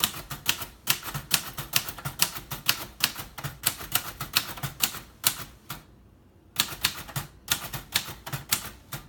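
Keys of a 1956 Royal Quiet Deluxe manual typewriter being struck in quick succession while typing a sample, about five or six strokes a second. The typing stops for a moment a little past the middle and then carries on.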